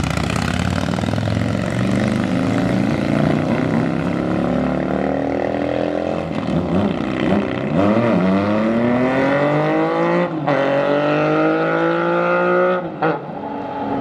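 Big motorcycles pulling away and passing: a Harley-Davidson touring bike's V-twin accelerating off, then more motorcycles going by. The engine pitch climbs through the gears, with breaks for the shifts about seven and ten seconds in.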